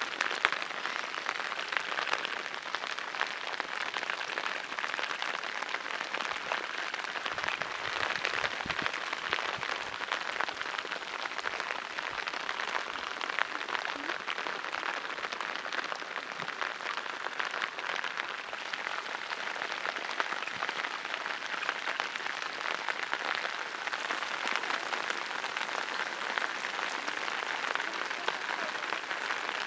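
Steady rain falling on the open water of flooded rice paddies: a dense, even hiss of countless drops striking the water.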